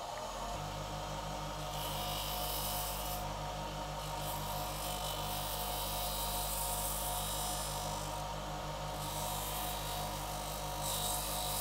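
A 150 mm bench grinder runs with a steady low motor hum. The rubber end of a speargun band is pressed against the wheel in about four spells of rasping grinding, taking off the flare at the band's end.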